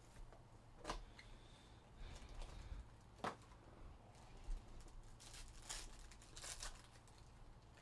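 Foil wrapper of a Crown Royale basketball card pack being torn open and crinkled by hand: faint, scattered rips and crinkles, thickest about five to six and a half seconds in.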